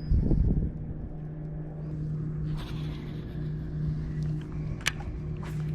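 A boat motor hums steadily and low. A brief low rumbling thump comes just after the start, and a single sharp click near the end.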